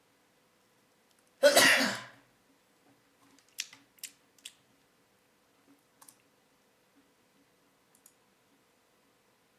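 A person's loud sneeze, one sudden burst about a second and a half in, followed a couple of seconds later by three short, much quieter sharp sounds.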